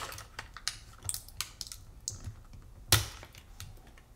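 Thin clear acetate sheet clicking and crackling as hands flex it and pop out the cut pieces. There are two sharper snaps, one at the start and one about three seconds in.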